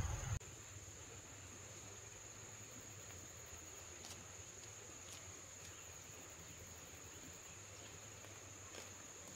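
A loud low rumble cuts off abruptly about half a second in, leaving insects shrilling in one steady, high-pitched drone over a faint low hum, with a few faint clicks.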